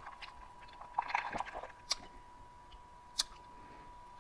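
Soft sipping and swallowing of soda through a plastic straw, with wet mouth sounds about a second in, then two short sharp clicks about two and three seconds in, the second the louder.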